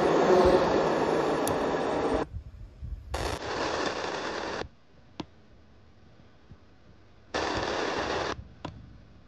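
FM radio static hissing from a small car-style AM/FM radio's built-in speakers as it is tuned across the band between stations. It comes in three bursts, about two seconds, a second and a half and one second long, each cutting off abruptly, with quiet between.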